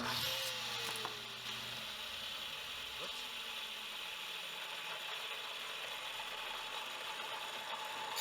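Wilton belt sander running with a fine 1000-grit belt while a knife blade is sharpened on it: a steady mechanical whir with an even hiss of the abrasive.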